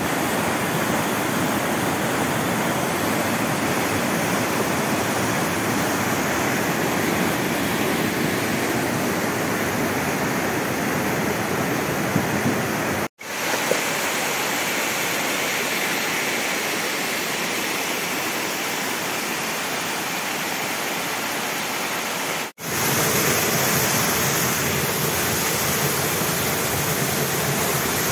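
Muddy floodwater rushing down a swollen hill stream and pouring over rocks: a steady, loud rush of water. It cuts off abruptly twice, at edits near the middle and about two-thirds of the way through, then carries on.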